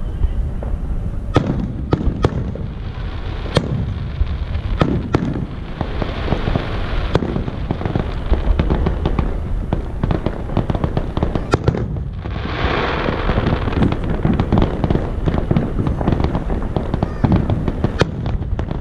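Fireworks display: aerial shells bursting with sharp bangs over a continuous low rumble of booms. Several bangs come in the first seven seconds, and a crackling hiss swells about twelve and a half seconds in.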